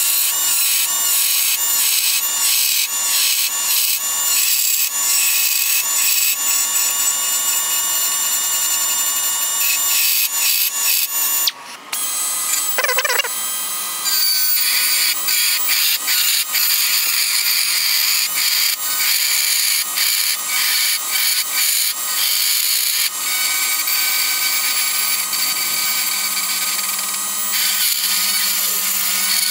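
A die grinder spins a cone-shaped carbide burr, cutting into cast aluminum to grind out old weld tacks. It gives a steady high-pitched whine, with a brief break near the middle.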